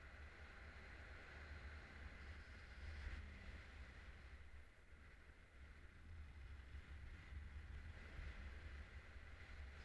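Faint, steady wind rumble and hiss of the airflow over a harness-mounted camera's microphone in paraglider flight.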